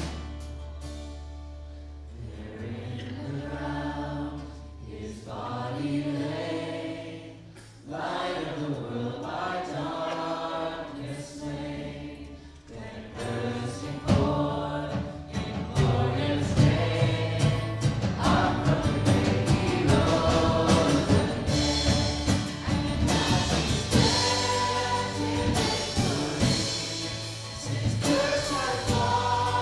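Gospel-style worship song: a choir singing over instrumental accompaniment, the music getting louder and fuller about 14 seconds in.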